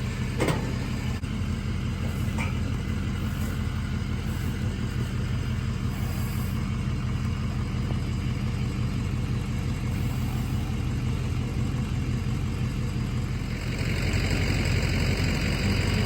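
A motor vehicle's engine idling steadily, growing louder near the end, with a single short knock about half a second in.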